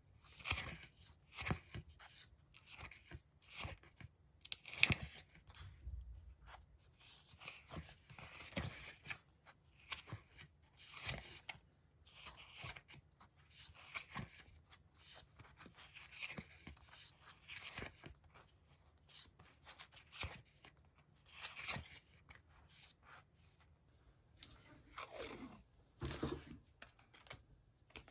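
Paper and stickers being handled for diary decorating: a string of short, irregular crackling rustles, with a longer sliding sound near the end.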